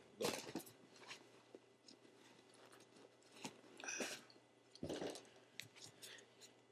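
Handling noise from a sneaker and a stiff plastic shoehorn being turned over and pulled out: faint scattered clicks, scrapes and rustles.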